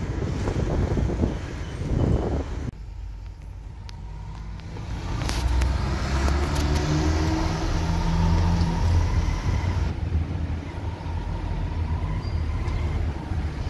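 Car ride heard from inside a taxi's cabin: rushing road and wind noise at first, which cuts off abruptly about three seconds in. From about five seconds in, the car's engine runs with a low, steady hum as the car moves slowly in traffic.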